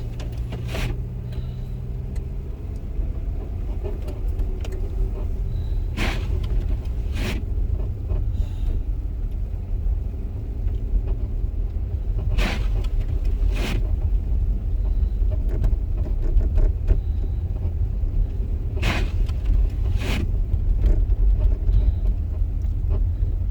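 Inside a car driving slowly on snowy roads: steady low engine and tyre rumble, with the windshield wipers sweeping loudly on an intermittent setting. Each sweep gives two sharp strokes a little over a second apart, about every six seconds.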